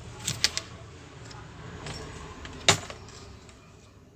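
Metal multimeter probe tips clicking and tapping on solder joints of an SMPS power-supply board during a continuity check: a quick cluster of three clicks in the first second, a few fainter taps, and the loudest single click a little before three seconds in.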